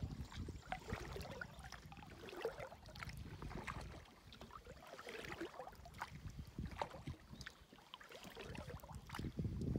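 Paddling an Old Town Pack canoe on calm water: scattered small drips, splashes and taps from the paddle and hull, faint overall, with a fuller swish of a paddle stroke near the end.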